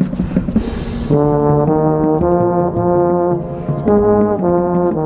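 Marching baritone played right at its bell: a run of loud sustained notes, each held about half a second, coming in about a second in. The first second is a noisy wash with sharp hits from the marching band.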